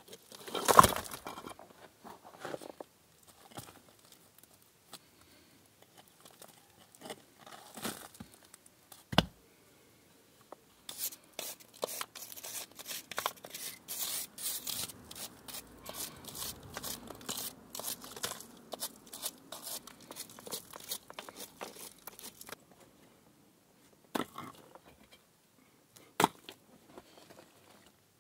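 Loose stones and soil being scraped and pried out from under a stone foundation by gloved hands and a small hand tool, with gritty scraping and rattling of falling rubble. Through the middle there is a long dense run of scraping, with a sharp knock of stone about nine seconds in and two single knocks near the end.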